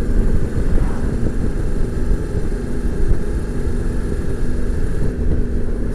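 Steady low rumble of wind and road noise from a motorcycle riding at road speed, with a faint steady engine hum through it.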